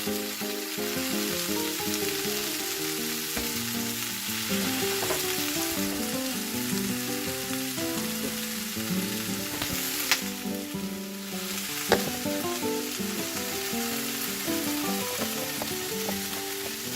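Spicy chicken feet in sauce sizzling and frying in a frying pan as they are stirred, with two sharp knocks near the middle. A melody of background music plays underneath.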